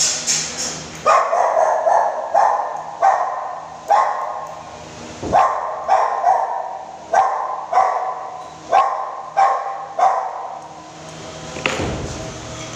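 A dog barking repeatedly, about a dozen barks spaced roughly half a second to a second apart, stopping about ten seconds in. A few quick snips of grooming scissors come just before the barking starts.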